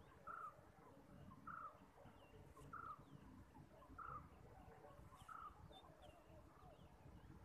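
Faint bird calls: one short note repeated at a steady pace, about once every second and a quarter, with smaller chirps of other birds between.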